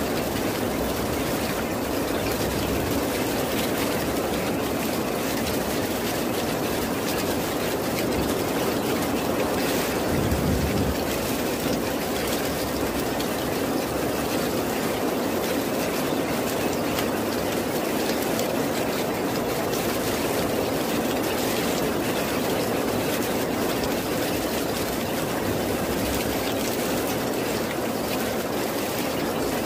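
Steady heavy rain, a dense even hiss with no break, with a brief low rumble swelling up about ten seconds in.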